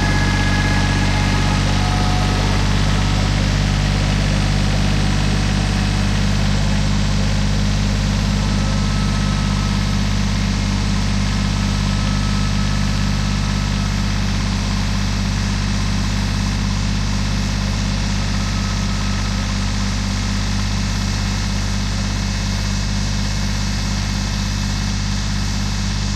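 Small Kubota tractor's diesel engine running steadily under load as it pulls a two-bottom plow through the soil, fading slowly as it moves off.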